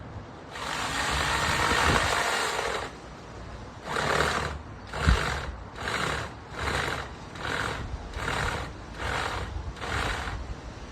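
A saw cutting into a tree branch: one long cut of about two seconds, then about nine short, even strokes in a steady rhythm.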